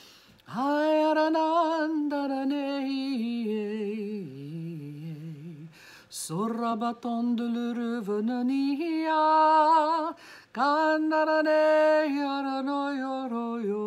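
A woman singing alone without accompaniment, in tongues: long held, wavering notes in three slow phrases with brief pauses for breath between them.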